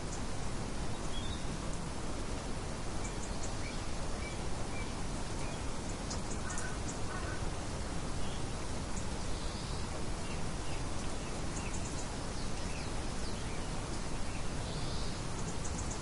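Steady wind noise with faint, short bird chirps scattered throughout.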